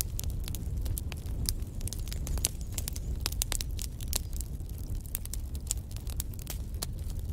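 Wood fire in a fireplace crackling, with many irregular sharp snaps over a low steady rumble.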